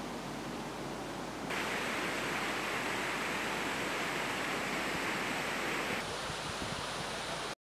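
Steady rush of water spilling over a low weir in a shallow canal. It grows louder and brighter about a second and a half in and eases back about six seconds in.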